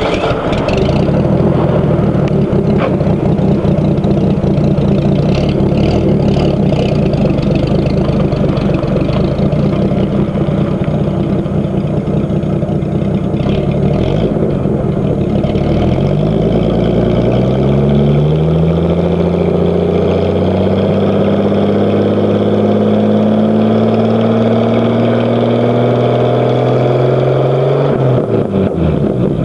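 1986 Ford F-150's 4.9 L (300 cu in) straight-six running through its aftermarket exhaust, steady at low revs for about the first half. From about the middle the revs climb slowly and evenly for some twelve seconds, toward about 3,000 rpm, then fall back near the end.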